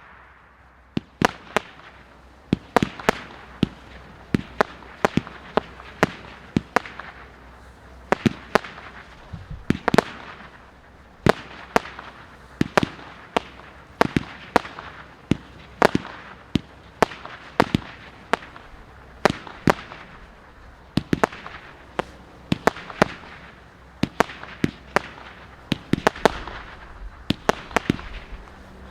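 Low-noise consumer fireworks firing: a long run of light pops, one or two a second, with a hiss between them.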